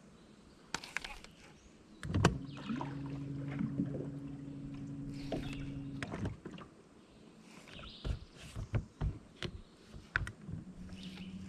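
A boat's electric trolling motor humming steadily for about four seconds, then again briefly near the end, with scattered clicks and knocks around the boat.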